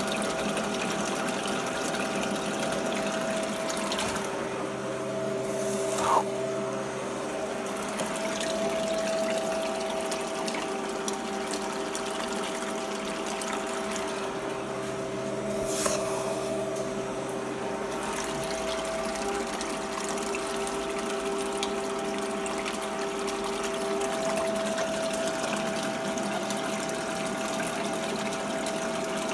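Water rushing steadily down a small reduction sluice over a Dream Mat mini cell, under the steady hum of a recirculating pump. A short sharp sound stands out twice, about six and sixteen seconds in.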